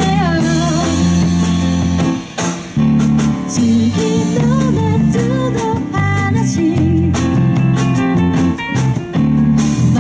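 Live band playing a song: a singing voice carries the melody over guitar, bass, keyboard and drum kit, with a brief break in the band about two and a half seconds in.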